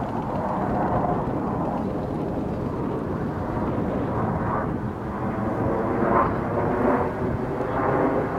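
Four F/A-18 Hornet jets flying in diamond formation through a dive, their jet engines making a steady rushing noise that swells a little in the second half.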